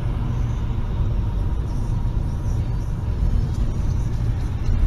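Steady low rumble of a car driving on a highway, heard from inside the cabin: engine and tyre noise picked up by a dashcam.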